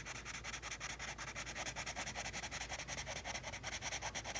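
Wax crayon rubbed back and forth on paper in rapid, even strokes, coloring in a patch of the drawing.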